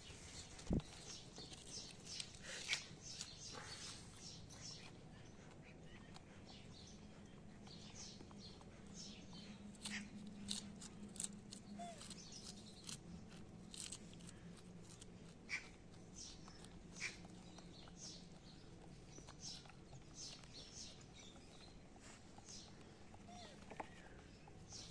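Quiet outdoor ambience with scattered small clicks and ticks, a sharp knock about a second in, and a couple of brief chirps.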